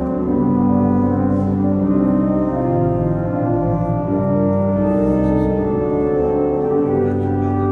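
Newly assembled church pipe organ played from its console: slow sustained chords that change every second or so over a low bass line. The instrument is not yet tuned or voiced.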